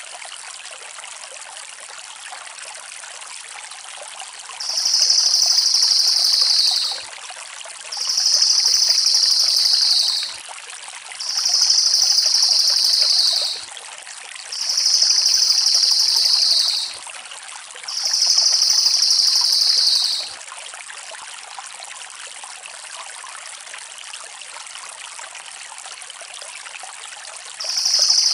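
Crested jay (cililin) giving a fast, dry, rattling call about two seconds long, each one dipping slightly at its end. It comes five times in quick succession, then once more near the end, over a steady hiss.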